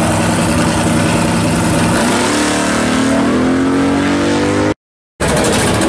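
Fox-body Ford Mustang drag car's engine running at a steady note, then rising in pitch about two seconds in as it accelerates down the strip. The sound cuts off suddenly near the end, and a different engine sound starts half a second later.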